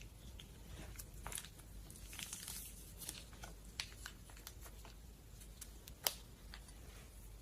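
Slime being handled, giving scattered small sticky crackles and pops, with one sharper, louder pop about six seconds in.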